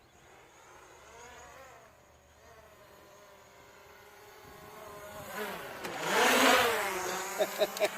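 Quadcopter drone's propellers buzzing, the pitch wavering up and down as it manoeuvres, growing much louder as it flies in close about six seconds in, then easing off slightly.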